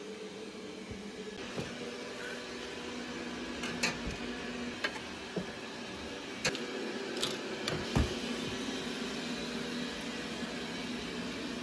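A steady mechanical hum, with several sharp plastic clacks and clinks as baby bottles are set into the rack of a UV baby-bottle sterilizer and its door is handled.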